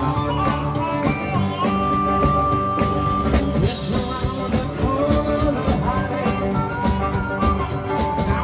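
Live blues band: a harmonica cupped against a hand-held microphone plays bending, wailing lines and holds one high note for about a second and a half about two seconds in, over electric guitar and drums keeping a steady beat.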